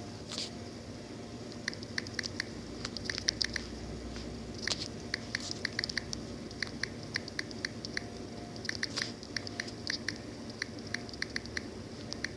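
Many quick, sharp clicks at an uneven pace, several a second, over a faint steady low hum.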